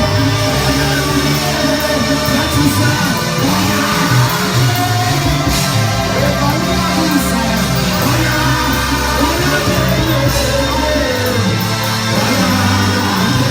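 Loud live gospel worship music: a church band with bass and drums plays under a singing lead voice.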